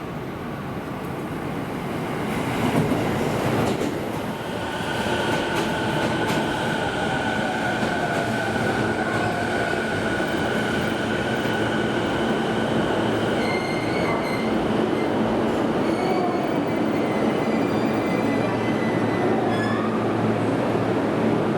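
Subway train pulling into the platform, its rumble growing over the first few seconds, then running on steadily. Steady high whines sound over the rumble until close to the end.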